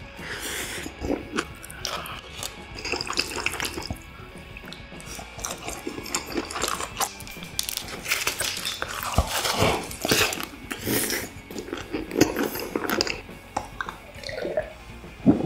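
Close, wet eating sounds of spicy boneless chicken feet in broth: slurping, smacking and chewing in quick irregular bursts, with a drink gulped from a glass near the end.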